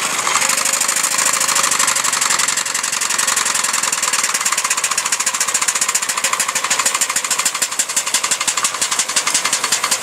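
Quarter-scale steam traction engine running, its exhaust a rapid, even string of beats over a steady hiss; the beats grow sharper in the second half.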